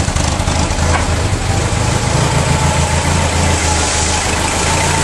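A 1973 BMW 2002tii's 2.0-litre four-cylinder engine idling steadily, running again for the first time after sitting 13 years.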